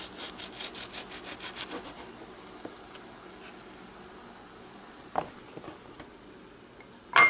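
Serrated knife sawing through a ripe tomato on a wooden cutting board: quick back-and-forth scraping strokes, about seven a second, for the first second and a half. Then quieter handling of the tomato, with a brief knock near the end.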